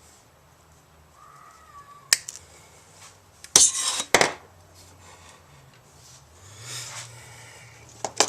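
Hand tools being handled on a workbench: a sharp click about two seconds in, a short clatter with another click around three and a half to four seconds in, and a softer rustle near the end.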